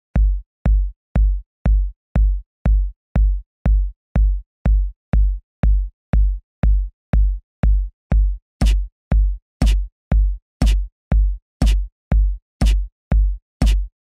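Incredibox beatbox music: a deep, steady kick beat about twice a second. About halfway through, a hissy snare-like hit joins once a second, on every other beat.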